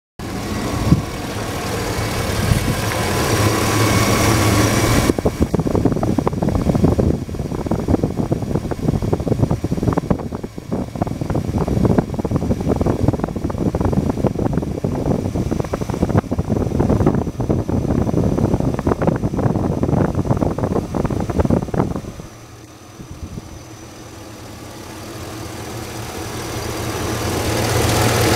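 Chevrolet 2500HD pickup's V8 engine idling steadily, heard up close in the open engine bay with the serpentine belt and pulleys turning. It gets louder and noisier from about five seconds in, then drops away sharply a few seconds before the end and builds back up.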